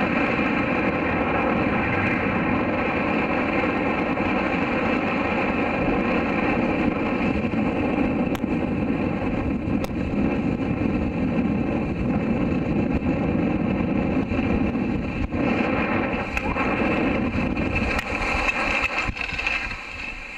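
Steady rush of wind over the camcorder microphone and skis hissing on snow while skiing downhill. The level wavers a little near the end.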